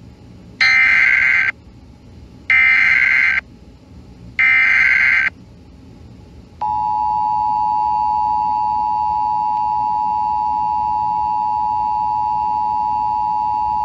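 Emergency Alert System header: three short bursts of screeching digital data, about a second each, then the steady two-tone attention signal held for about eight seconds. It marks the start of an emergency alert, here a National Weather Service flash flood warning.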